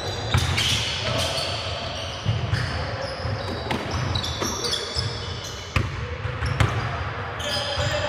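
Live basketball play on a hardwood gym floor: the ball thuds on the court several times at irregular intervals, and sneakers squeak in short high chirps as players cut and stop.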